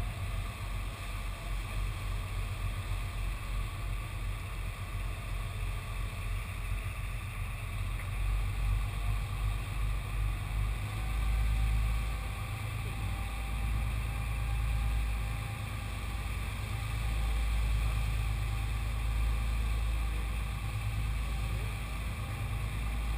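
Sportfishing boat under way: a steady engine drone with the rush of wind and wake water, and a low rumble that swells and eases.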